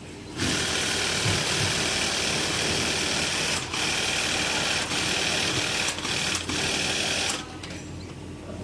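Industrial flatbed sewing machine stitching a padded walker-boot liner. It starts about half a second in and runs at steady high speed with a few brief dips, then stops about a second before the end.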